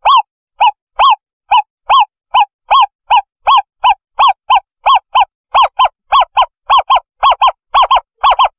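Owlet calling: a long run of short, arched hoots that speed up from about two to about four a second, the notes coming in close pairs near the end.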